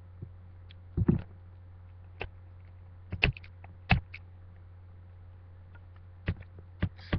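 Scattered sharp clicks and taps from a plastic CD case being handled as it is opened, over a steady low hum.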